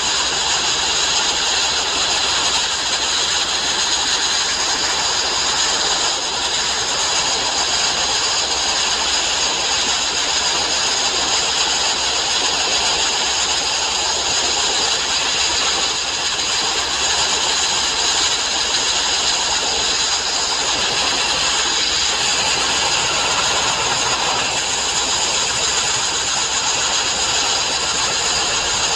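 Sandblasting: a steady, unbroken hissing rush of compressed air and abrasive.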